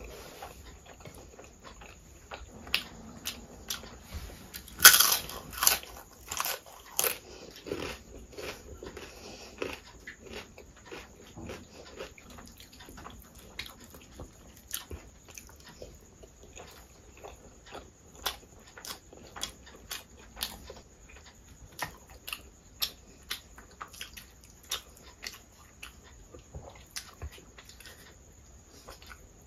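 Close-miked eating sounds: chewing and wet mouth clicks as rice and curry are eaten by hand, with a burst of louder bites about five to seven seconds in.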